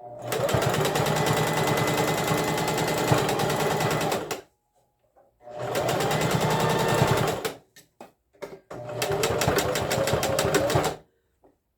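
Electric sewing machine stitching a pyjama waistband with new elastic, in three runs of rapid needle strokes, stopping briefly between runs.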